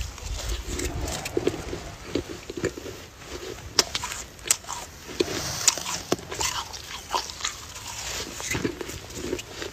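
Fresh snow crunching as it is scooped up by hand, bitten and chewed, in an irregular run of sharp crunches.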